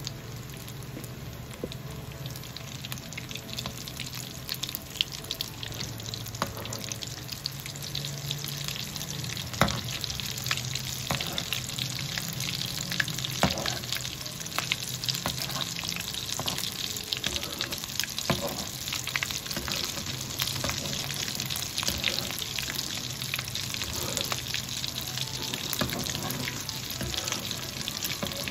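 Breadcrumbed potato-and-chicken cutlets deep-frying in hot oil: a steady sizzle with scattered sharper pops and crackles.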